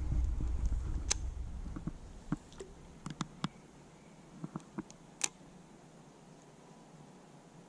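A low rumble fades out over the first two seconds. After that it is quiet, with a handful of scattered light clicks and taps, the sharpest about a second in and about five seconds in.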